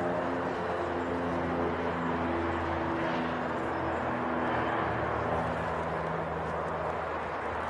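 Slow ambient background music of low held notes that change every second or two, over a steady rushing noise.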